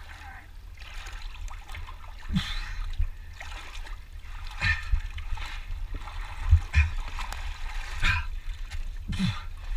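Muddy pothole water splashing and sloshing as a person moves through it with a backpack floating alongside: irregular splashes every second or two, with dull low thumps.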